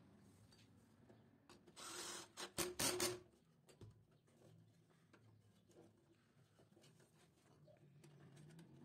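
Faint rubbing and scraping of wires being handled and pushed into the panel's terminal blocks: a short spell with a few light clicks about two seconds in, then near silence.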